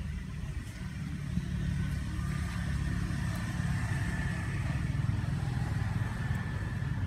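An engine running steadily at a low, even pitch, with a faint steady high whine above it.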